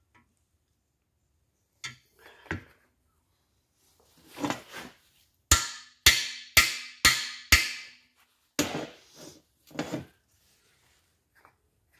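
Hammer blows on the end of a cam bearing driver bar, driving a cam bearing into the cam tunnel of a Pontiac 400 block. A couple of light taps come first, then five sharp metallic strikes about two a second, each ringing briefly, then a few lighter taps.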